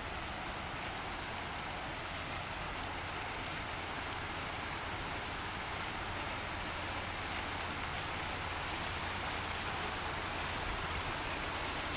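Water jets of a fountain splashing back down into the pool: a steady rush of falling water.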